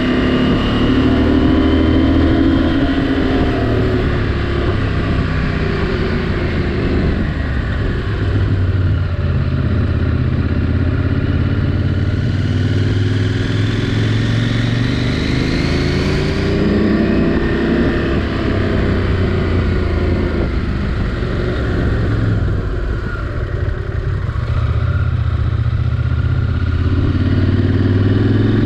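KTM 790 Adventure R's parallel-twin engine running under way, its note rising and falling repeatedly with the throttle.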